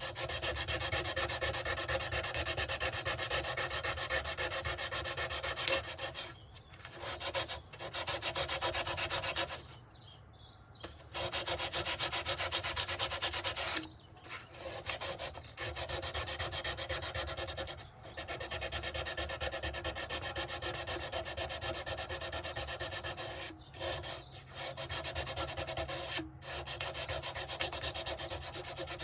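180-grit sandpaper rubbed by hand over a knife in rapid back-and-forth strokes, stopping briefly several times, longest about ten seconds in.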